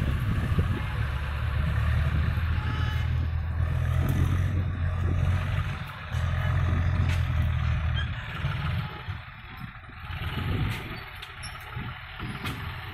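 Diesel engines of tractors and a JCB 3DX backhoe loader running across an earthworks site, heard as a steady low rumble. The rumble is heavy for the first eight seconds or so, with a brief dip about six seconds in, then eases.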